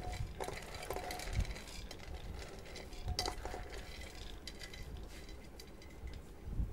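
Handfuls of loose corn kernels dropping into an aluminium pressure cooker: a scatter of small clicks and patters as they land on the metal and on each other, with a few louder clinks about a second and a half in, around three seconds in, and near the end.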